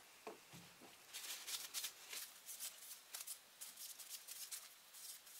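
Paper towel rustling and rubbing over a metal drill chuck as it is wiped down with acetone, faint short strokes in an uneven rhythm, starting about a second in after a couple of soft knocks.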